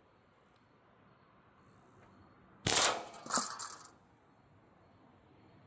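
A Crosman M1 full-auto BB rifle fires a short burst about two and a half seconds in, followed within the next second by a few fainter cracks.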